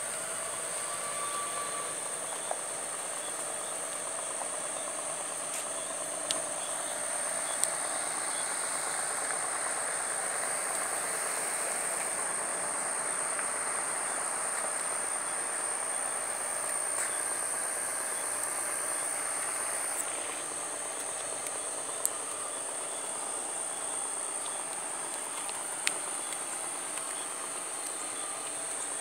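Steady, high-pitched chorus of insects such as crickets, with a duller rushing background noise that swells from about eight seconds in and eases off again near twenty seconds, and a few faint clicks.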